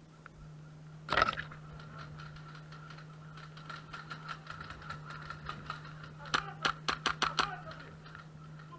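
Airsoft guns firing: one sharp crack about a second in, scattered shots after it, and a quick string of about eight cracks near the end, over a steady low hum.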